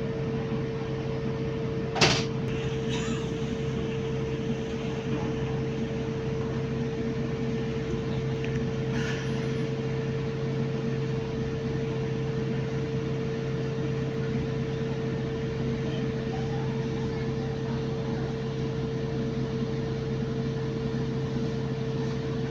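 Moving bus heard from inside the cabin: a steady running hum with a constant whine. There is a sharp knock about two seconds in and a lighter one near nine seconds.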